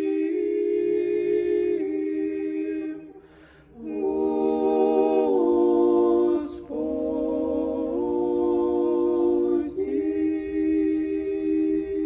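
Three women's voices singing Orthodox liturgical chant a cappella in close harmony, holding long sustained chords that move from one to the next. The singers break briefly about three seconds in, then come back in together.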